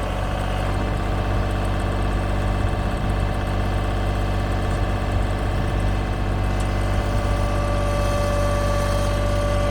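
Diesel engine of a LeeBoy 800D track-mounted asphalt paver running steadily at idle. A steady whine grows stronger near the end.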